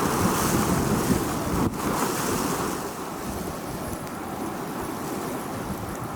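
Desert storm wind blowing in strong gusts, loudest for the first two seconds or so, then easing to a steadier rush.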